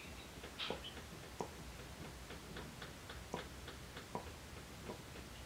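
Faint, soft mouth clicks and pops, irregular at about one or two a second, as hookah smoke is pushed out in rings.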